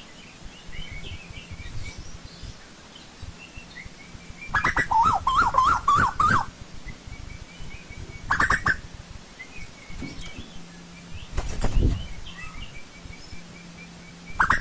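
Asian koel calling: a loud, fast warbling run of rising and falling notes lasting about two seconds, a shorter call a couple of seconds later and a brief burst near the end. Fainter chirps from smaller birds sound between the calls.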